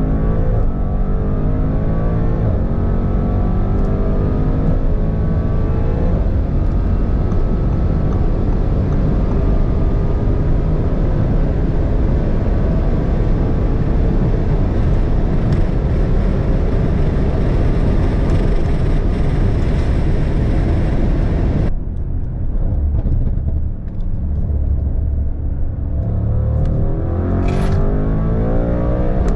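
Twin-turbo 4.0-litre V8 of a tuned Audi RS7 C8, upgraded to about 1040 hp, heard from inside the cabin at full throttle at high speed, its pitch climbing. About 22 seconds in it cuts to a lower, rougher rumble, and near the end the engine pulls hard again with a rising note.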